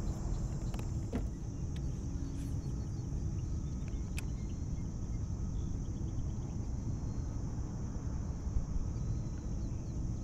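Steady low outdoor rumble with a continuous high insect drone over it. A couple of faint clicks sound about one and four seconds in.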